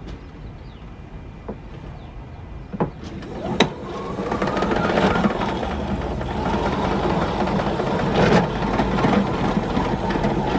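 Retractable hose reel of a Giraffe Tools Grandfalls wall-mounted pressure washer winding its hose back in, the guide laying the hose in rows across the drum. A few separate clicks come first. About three and a half seconds in there is a sharp click, then a steady mechanical whirring that rises in pitch as the reel gets going and then holds.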